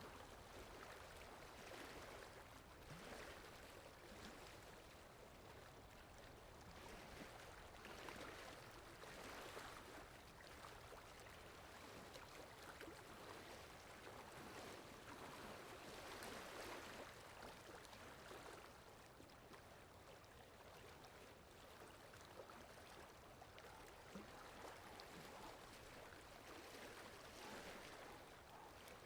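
Faint water-ambience sound effect: a soft, continuous wash of water that swells and eases every few seconds.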